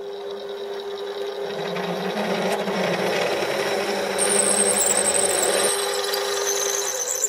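Small metal lathe running in low gear while a 14 mm drill bit, fed from the tailstock, drills into the spinning pulley blank. A steady motor hum carries a cutting noise that builds up, and the drill starts a high squeal about four seconds in. The lathe is switched off at the very end.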